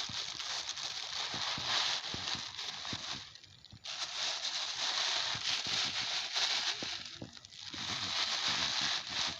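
Plastic bags and waste rustling and crinkling as they are stuffed into a bag by hand, with two short pauses.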